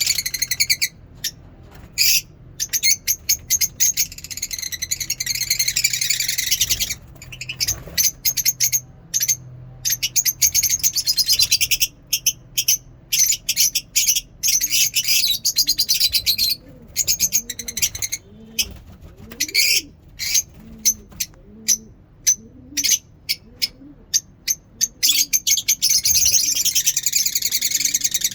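Lovebirds chirping and chattering: shrill, rapid calls come in dense runs broken by short gaps, with fainter lower curved calls in the middle.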